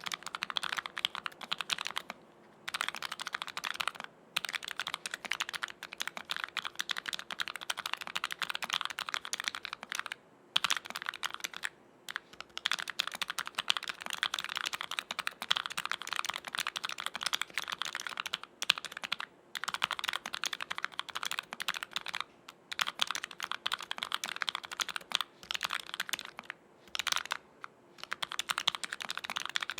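Fast continuous typing on a Keychron K3 Retro low-profile mechanical keyboard with Gateron low-profile KS-27 switches on an aluminium plate: a dense run of quick key clicks, broken by a handful of brief pauses.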